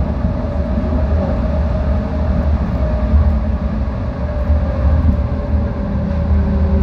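Busan Metro Line 4 rubber-tyred light metro train running at speed through a tunnel, heard from inside the car: a steady low rumble with a faint whine over it.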